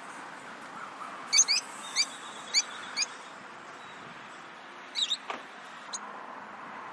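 Lovebirds giving short, sharp, high chirps over a steady background hiss: a quick run of about five chirps between one and three seconds in, then a tight cluster of three around five seconds in.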